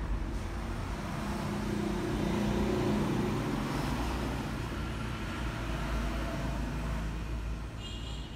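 Road traffic rumbling, with an engine hum that swells and fades in the first half, and a brief high-pitched tone near the end.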